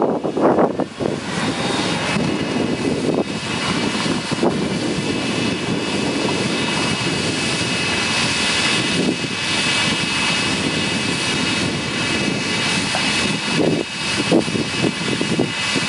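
Corn harvesting machinery running steadily: an engine with a steady high whine over it.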